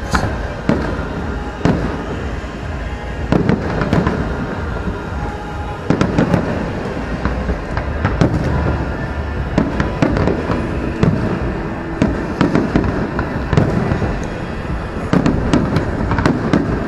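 Aerial fireworks shells bursting in quick succession: a continuous barrage of booms and sharp cracks over a steady low rumble.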